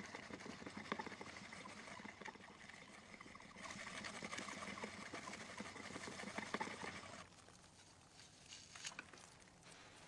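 Friction fire-making with a wooden fire drill: the spindle grinds against the wooden board in a steady, grainy rasp full of fine crackles, grows louder midway and stops abruptly about seven seconds in. A few faint clicks follow.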